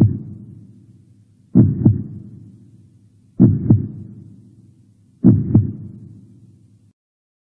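Heartbeat sound effect: slow double thumps (lub-dub), four of them about two seconds apart, each trailing off in a low echo.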